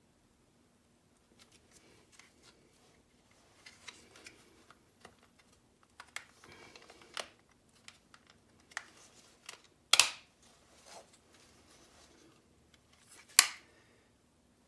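Small plastic and metal parts of a car door lock actuator being handled and fitted by hand: scattered light clicks and rattles, with two sharp snaps, one about ten seconds in and one about three seconds later.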